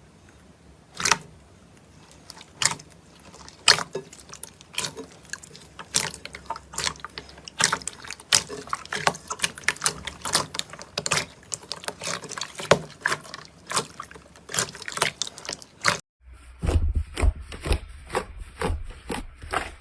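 Slime being squeezed and pressed by hand, giving irregular wet clicks and pops that grow denser. About three-quarters of the way through it cuts to another slime clip, with faster clicking over a deep low rumble.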